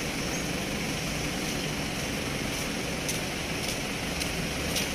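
Steady street noise of traffic on a rain-wet road: a continuous low rumble and hiss of passing vehicles, with a few faint light clicks.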